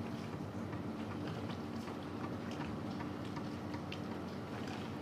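A steady low machine hum with light, irregular clicks and ticks over it.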